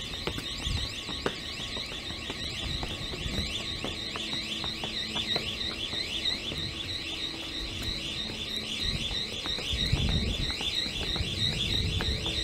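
Electronic warning alarm warbling, its pitch sweeping rapidly up and down several times a second.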